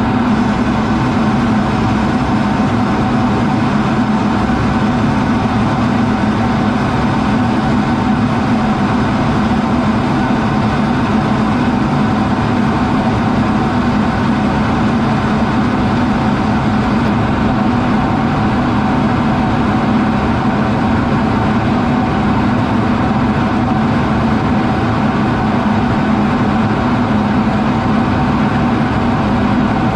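Steady in-flight cockpit noise of an F-16 fighter jet: engine and rushing air heard inside the canopy, a constant drone with a strong low hum and a fainter higher tone.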